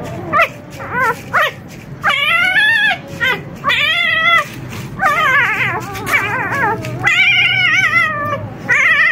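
Four-day-old puppies crying: a run of high, wavering squeals, a few short ones in the first second and a half, then longer drawn-out cries one after another, sometimes overlapping.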